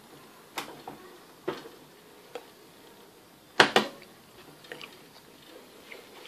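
Light clicks and knocks from hands handling a small 24 V belt conveyor: a few short knocks in the first two and a half seconds, a louder double knock a little past halfway, then faint ticks.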